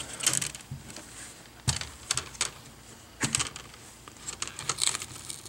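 Plastic screen bezel of a Lenovo N21 Chromebook being pried off by hand, its clips snapping loose in several sharp clicks about a second apart.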